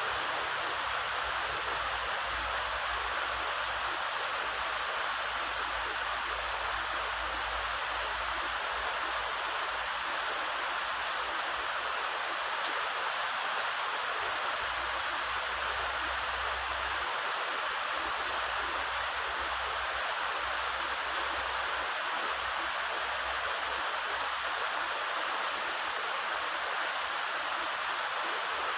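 Heavy rain falling steadily, an even hiss with no letup, with one sharp click about halfway through.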